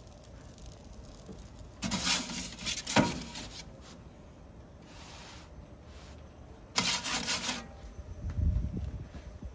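Perforated metal pizza peel scraping across the oven's stone as the pizza is slid out and then back in. There are two scrapes, about two seconds in and about seven seconds in, with a sharp knock during the first.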